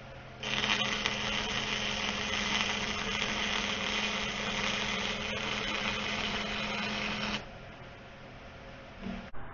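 Flux-core wire-feed welder laying a bead: a steady crackling arc with a low hum under it, starting about half a second in and stopping about seven seconds later. A short bump comes near the end.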